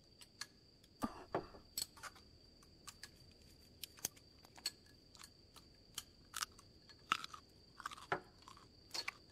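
Faint eating sounds: chopsticks clicking against small bowls, with quiet chewing, in short irregular clicks about two a second.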